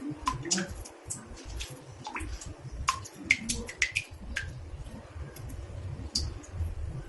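Water drops falling into a bathtub one after another at an uneven pace, each a short sharp drip, some with a brief pitched ring, over a low rumble.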